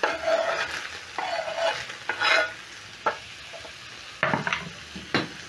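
Cut eggplant slid off a wooden chopping board into a hot pan of minced meat frying on high flame, which sizzles steadily. Scraping in the first couple of seconds, then a few short knocks as the pieces and board hit the pan.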